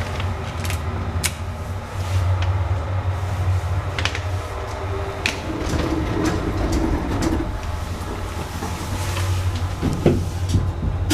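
Modernised Thyssen lift running: a steady low hum with scattered clicks and knocks.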